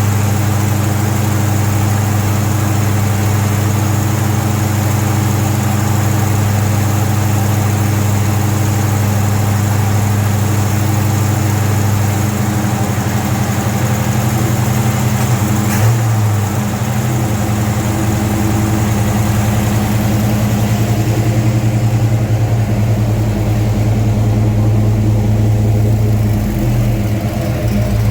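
Freshly rebuilt Pontiac 400 V8 in a 1970 GTO running steadily as it warms up. Its note shifts slightly about halfway through and again near the end, with one short click about 16 seconds in.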